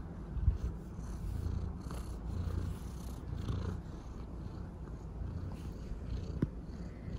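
Maine Coon cat purring up close while its chin and cheek are scratched, the purr swelling and easing about once a second with its breathing. A sharp click sounds near the end.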